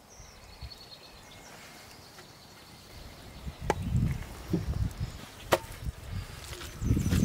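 Handling sounds as whole raw chickens are lifted off a metal tray and laid on rice in a large pot: soft thuds, with two sharp knocks about two seconds apart in the middle. The first few seconds are quiet outdoor background.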